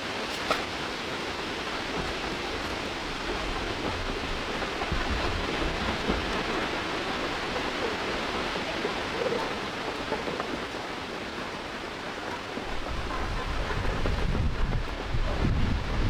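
Steady outdoor rushing noise, with a low rumble building over the last few seconds.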